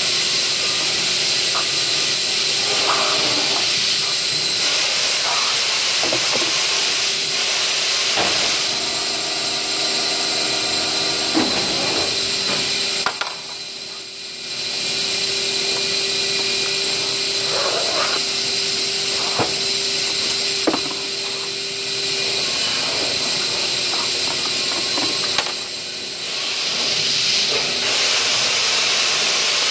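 Steady hissing background noise of factory machinery with a faint steady hum tone, dipping briefly twice, about midway and near the end. Light knocks of plastic flower pots being handled and stacked.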